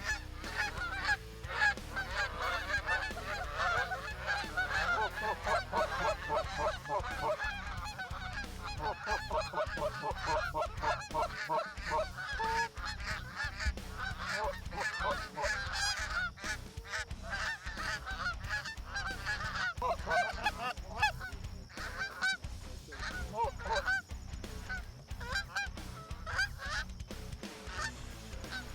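A flock of Canada geese honking, many short calls overlapping in a continuous chorus.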